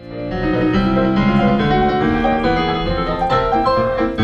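Piano playing a fast, busy piece with many quick notes, fading in at the start.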